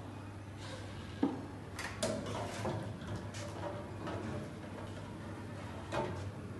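Stainless steel wire basket knocking and scraping against the rim and walls of a stainless steel tank as it is lowered in, with a sharp knock about a second in, a cluster of clinks around two seconds, and another knock near the end. A steady low hum runs underneath.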